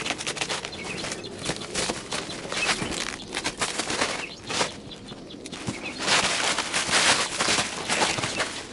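Black plastic wrapping crackling and rustling as it is pulled off a cardboard box, with a louder stretch of crinkling about six seconds in.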